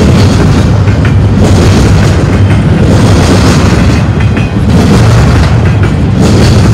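Loud, steady rumble and clatter of a double-stack container train's steel wheels rolling on the rails close by, swelling about every second and a half.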